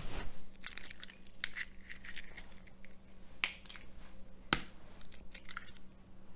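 Two eggs being cracked and opened into a stainless steel mixing bowl: sharp taps of shell, the loudest at the start and about three and a half and four and a half seconds in, with crackling of shell being pulled apart between them.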